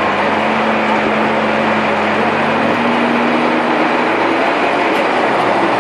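Manitou MLT 1035 telehandler's diesel engine running under load as the machine works, its note stepping up a little partway through, under a loud, even rushing noise.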